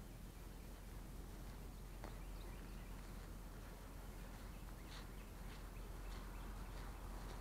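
Faint footsteps through grass over a low steady outdoor rumble, with a few faint, short bird chirps.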